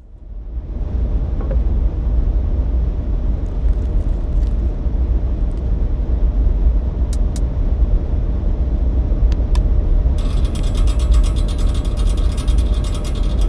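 A steady, low mechanical rumble fades in. About ten seconds in, a fast, dense mechanical clicking and rattling joins it.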